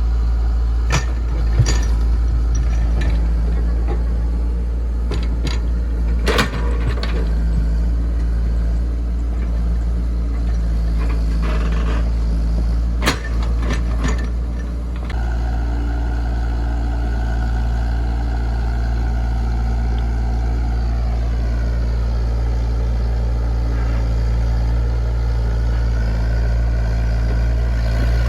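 A Komatsu PC68 excavator's diesel engine runs steadily, with a few sharp metallic knocks in the first half. About halfway through, a higher whine joins the engine and holds, dipping a little in pitch a few seconds later.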